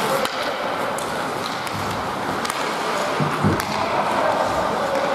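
Ice hockey rink during play: a steady wash of skates on the ice and arena noise, with a few short sharp clacks of sticks and puck scattered through.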